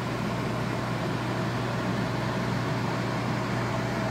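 1966 Admiral Royal 106 air conditioner running just after start-up, its fan blowing air out through the grille: a steady rush of air over a constant low hum.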